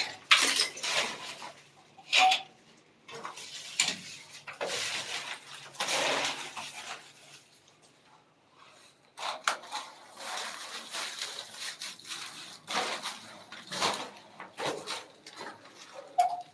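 Construction work done by hand: irregular scraping and clattering knocks of tools and materials, with a quieter stretch about halfway through.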